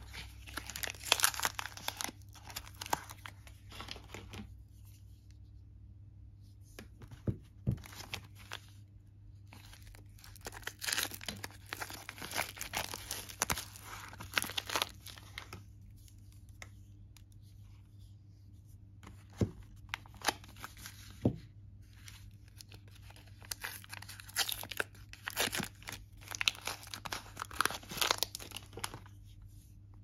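Soap bar wrappers being torn open and crinkled by hand. The rustling and tearing come in bursts with quieter pauses between them, and a few single light knocks fall in the pauses.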